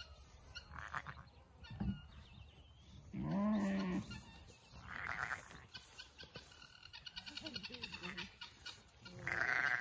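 Sheep bleating: a ewe and her young lambs calling, with a deeper, wavering baa about three seconds in and several higher-pitched bleats, the loudest one near the end.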